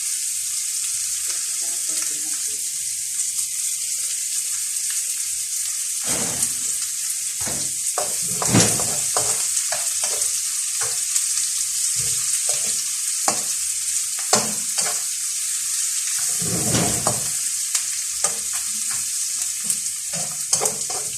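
Garlic and onion sizzling in hot oil in a pan, with a steady frying hiss throughout. Irregular scrapes and knocks come from the pan being stirred, the strongest about six, eight and a half, fourteen and seventeen seconds in.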